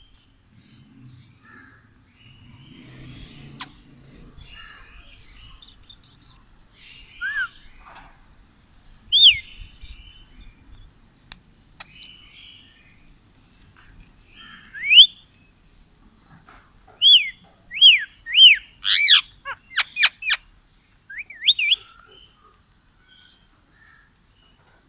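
Rose-ringed (Indian ringneck) parakeet giving loud, sharp screeching calls, each a short rise and fall in pitch: a few single calls, then a quick run of about a dozen near the end, with softer chattering before them.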